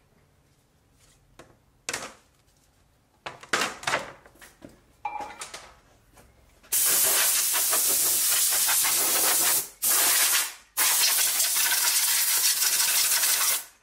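Panel sheets are shifted and set down with a few knocks and scrapes, then a handheld 7.5-inch circular saw cuts 3 mm aluminium composite panel as a loud, even rushing whir from about seven seconds in, broken twice by short gaps.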